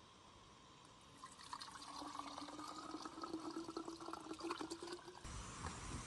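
Hot water poured from a canister-stove pot into a jar, gurgling with a pitch that rises gently as the jar fills. It stops abruptly near the end and gives way to a low rumbling noise.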